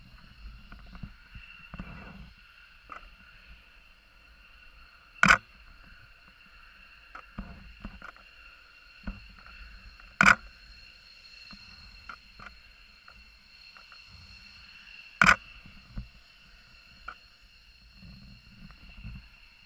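Distant F-15 jet engines running on the runway, heard as a steady high whine. Three loud sharp clicks close by, about five seconds apart, stand out over it, with smaller clicks and handling rumble in between.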